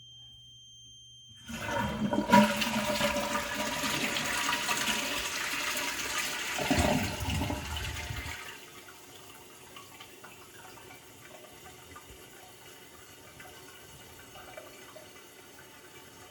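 A toilet's thin, high-pitched squeal, which flushing silences, is faint at first. The toilet then flushes about a second and a half in, with loud rushing water for about seven seconds that drowns and ends the squeal. Quieter running water follows as the cistern refills.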